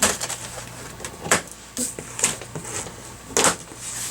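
Packaging and boxed equipment being handled during unboxing: a series of short knocks and scrapes, the loudest about three and a half seconds in.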